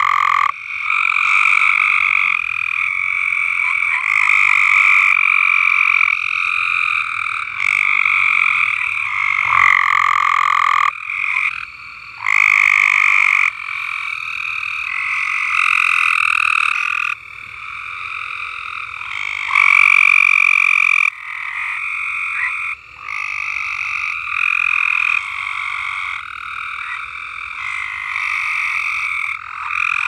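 A chorus of several frogs calling, one long call after another, each lasting from about one to several seconds and often overlapping.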